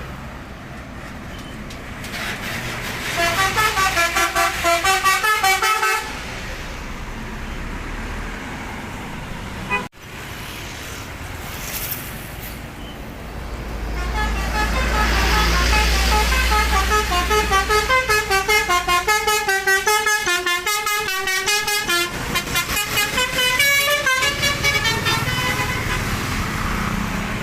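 Telolet basuri multi-tone bus air horn playing fast melodies of pulsing, stepping notes: a short run early on, then a longer one from about 14 seconds that lasts over ten seconds. A bus engine rumbles under the start of the longer run, and the sound cuts off sharply about ten seconds in, between clips.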